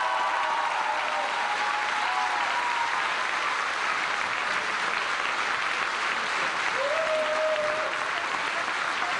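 Theatre audience applauding steadily, with a few voices cheering over the clapping near the start and again about seven seconds in.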